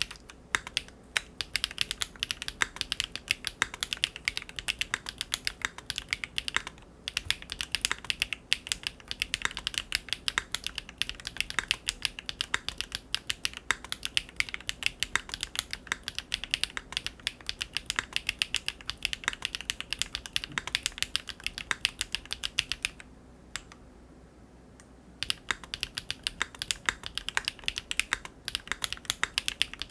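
Continuous fast typing on a Big Whale custom mechanical keyboard with GEON Raw Zero switches on a polycarbonate plate, a dense run of keystrokes. It breaks off briefly twice, the longer pause about two seconds long near the end.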